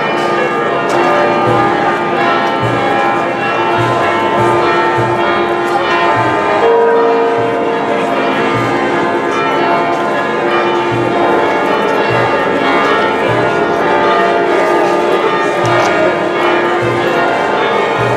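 Church bells ringing a continuous festive peal: several bells sounding together in overlapping tones, with a low stroke recurring about every half second.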